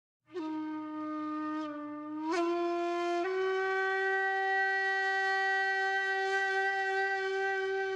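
Background music: one long held wind-instrument note that steps up in pitch twice in the first few seconds, then holds steady.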